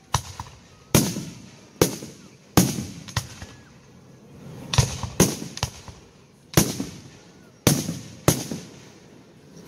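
Aerial fireworks shells bursting in the sky: about ten sharp booms at uneven intervals, each trailing off as it fades.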